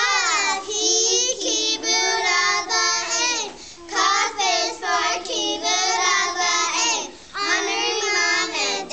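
A group of young children singing a song together in unison, in three phrases with short pauses between them.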